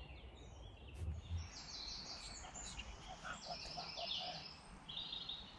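Songbirds singing in woodland at dusk: quick, high trilled phrases repeated over faint background noise, with a run of short lower notes in the middle. A soft low thump about a second in.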